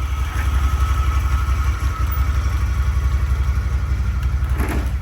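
A motor vehicle's engine running steadily with a fast, even low throb.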